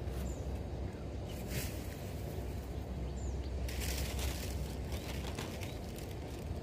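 Outdoor ambience: a steady low rumble with a few faint bird chirps, and a burst of clothing rustling against the microphone about four seconds in.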